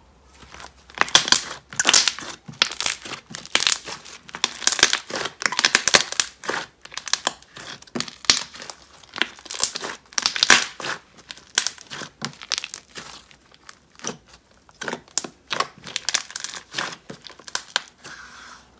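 Hands squeezing, stretching and folding a thick, holdable slime, giving dense runs of sticky crackles and small pops. It starts about a second in and comes in bursts with short pauses.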